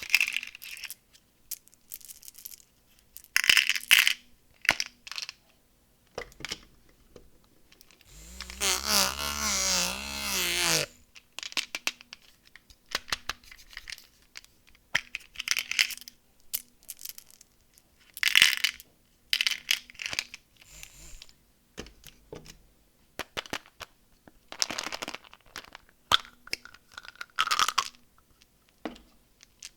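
Candy wrappers and plastic packaging being handled and unwrapped: scattered crinkles, clicks and small clatters, with one loud continuous stretch lasting about three seconds, around eight seconds in.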